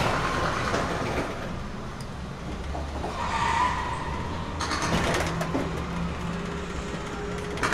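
Car-chase sound effects from a tram ride's 3D show played loud over its sound system: car engines and tyre noise over a low rumble, surging about three and a half seconds in and again near five seconds.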